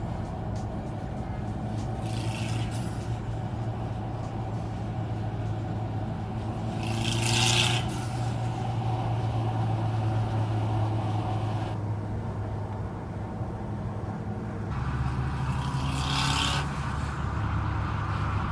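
Highway road noise inside an SUV driving with its rear hatch open: a steady low drone of engine and tyres, with three louder rushes of air noise about two, seven and sixteen seconds in.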